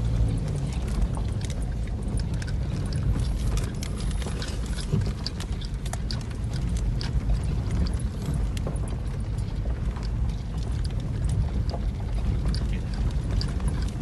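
Car driving over a rough, bumpy dirt track, heard from inside: steady low road rumble from tyres and suspension with frequent small knocks and rattles. A steady engine hum underneath fades out in the first second.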